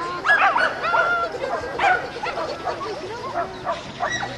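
Dogs barking and yipping, short high-pitched barks coming several times a second without a pause.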